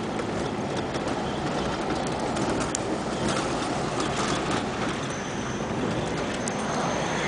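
Steady road and engine noise heard from inside a moving car's cabin, growing a little louder near the end as the car enters a road tunnel. A few faint clicks come in the middle.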